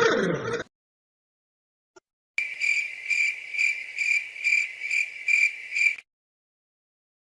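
Cricket chirping sound effect: a high-pitched chirp repeating about twice a second for roughly three and a half seconds, cut off cleanly. Just before it, the tail of a falling-pitch sound effect stops a moment after the start.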